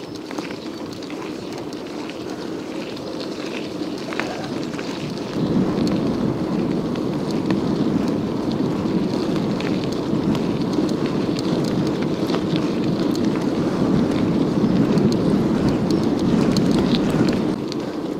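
Wind buffeting the microphone of a moving bicycle rider, a rumbling rush that gets sharply louder about five seconds in and stays loud.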